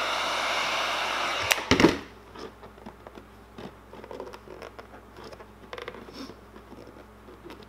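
Heat gun blowing hot air steadily onto a graphics decal to soften it, cutting off with a couple of clicks about two seconds in. After that come faint rubbing and tapping as fingers press the decal down onto the plastic RC body.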